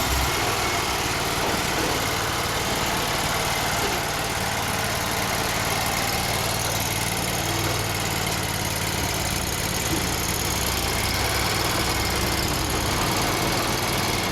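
Stump grinder's petrol engine running steadily.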